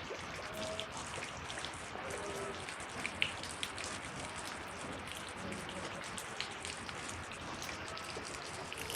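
Steady wash of water noise, dense with small pattering ticks like rain falling on surfaces, during a flood.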